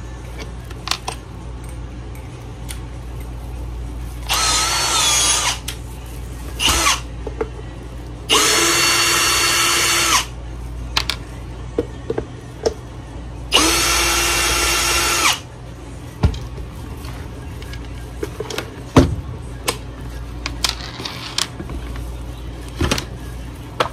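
Milwaukee Fuel cordless drill-driver whirring in four short runs, the longest about two seconds, as it backs out the screws of a blower housing. Clicks and knocks of handling come between the runs.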